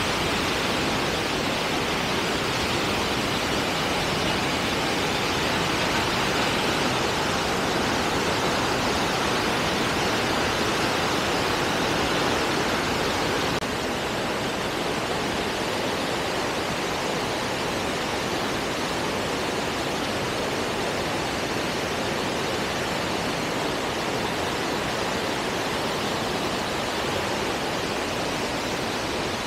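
Water released through a dam's open gates, gushing out in a steady, powerful rush. The level dips slightly about halfway through, then holds steady.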